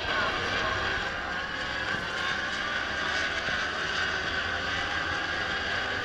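Racing superbike engines running at high revs out on the circuit, a steady high-pitched engine note that holds throughout.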